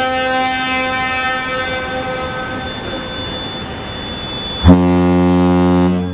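Ship's horn blasts: a higher-pitched horn sounding and fading over the first three seconds or so, then, almost five seconds in, a loud, deep ship's horn blast of about a second and a half that cuts off abruptly.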